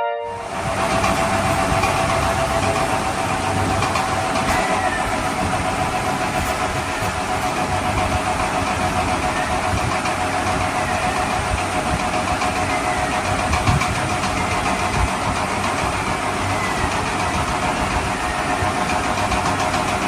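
Engine sound running steadily at idle, with a constant mid-pitched hum over it.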